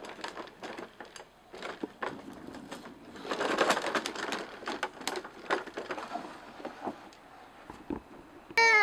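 Hard plastic wheels of a child's ride-on push toy rattling and clicking as they roll over wooden deck boards, with a denser patch of clatter about three to four and a half seconds in.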